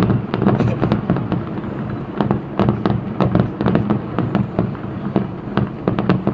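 Fireworks display going off in rapid succession: a dense crackle of sharp pops and bangs, several a second, with no let-up.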